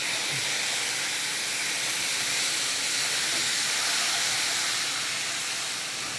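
Loud, steady hissing sizzle of steam from chicken stock splashed into sugar caramelizing in a hot frying pan. It eases slightly near the end.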